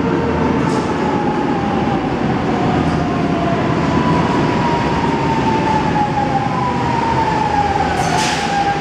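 Lisbon Metro ML99 train pulling into the station and slowing, its rumble carrying a whine that falls gradually in pitch. A short hiss comes near the end.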